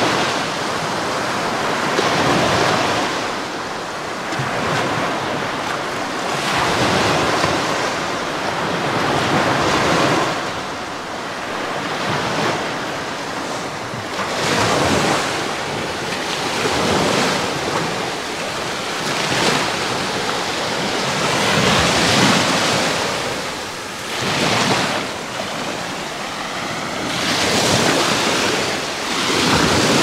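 Small Black Sea waves breaking and washing up a shell-strewn shore, the surf surging every two to three seconds, with wind buffeting the microphone.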